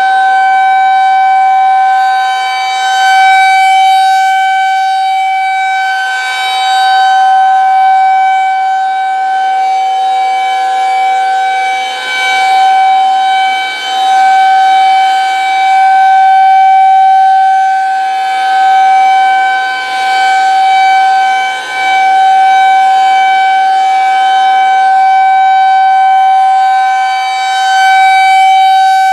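Federal Signal 2001-130 electromechanical rotating outdoor warning siren sounding the steady Alert signal. It holds one pitch while its loudness swells and fades every few seconds as the rotating head sweeps past.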